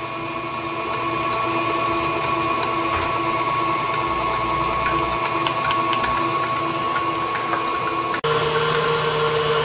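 KitchenAid stand mixer's motor running steadily as its beater creams butter and sugar. About eight seconds in the sound breaks off briefly and resumes with a different, lower hum.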